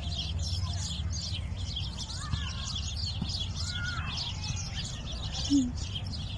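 Many small birds chirping in a dense, unbroken chatter over a steady low rumble, with one short low note about five and a half seconds in.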